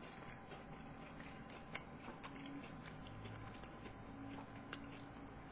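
Faint chewing of a mint Oreo chocolate bar: soft scattered mouth clicks and small crunches.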